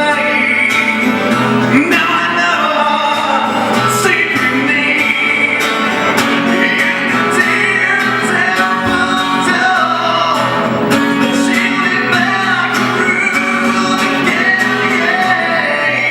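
Music: a male voice singing over an instrumental backing, with plucked or strummed guitar.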